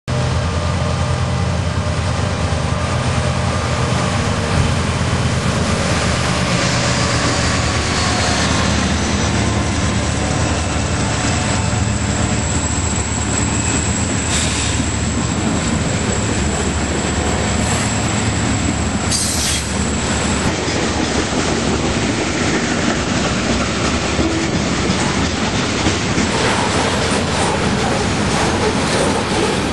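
Freight train passing close by: the low drone of diesel locomotive engines in the first several seconds gives way to the rumble and clatter of rolling tank cars. A high, steady wheel squeal runs from about seven to twenty seconds in.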